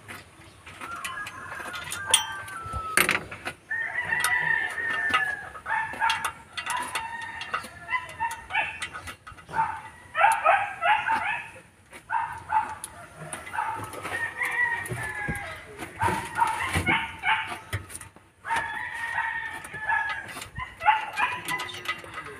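Chickens clucking and a rooster crowing in repeated runs of calls, with sharp metallic clicks of the cylinder head bolts being worked out by hand.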